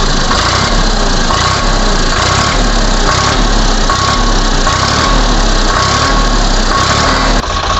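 Sonalika DI-50 RX tractor's diesel engine idling steadily.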